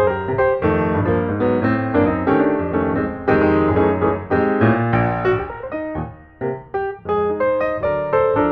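Piano music: a quick, continuous run of notes and chords, dipping briefly about six seconds in.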